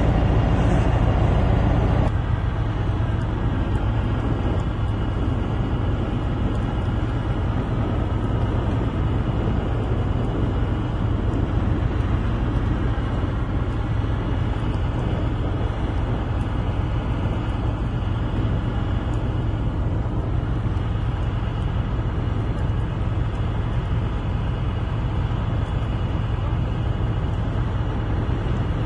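A heavy engine or machine running steadily with a deep low rumble, a little quieter from about two seconds in.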